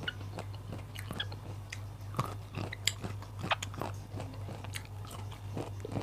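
Close-miked biting and chewing of crunchy raw vegetables: an irregular run of wet clicks and crunches, over a steady low hum.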